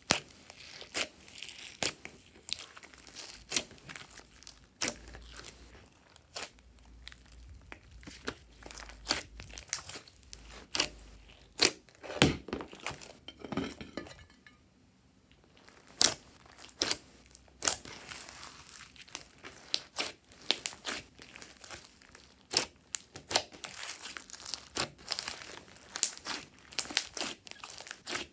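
Glossy slime being squeezed, pressed and stretched by hand: a dense run of irregular sticky pops and crackles, with a short quieter pause near the middle.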